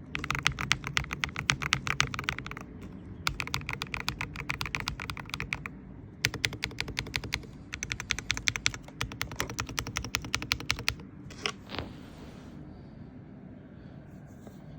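Typing on an IQUNIX EZ63 mechanical keyboard with Gateron Jade Pro switches: three runs of rapid keystrokes with short pauses between them. They stop about eleven seconds in, followed by a couple of single key sounds and then faint background noise.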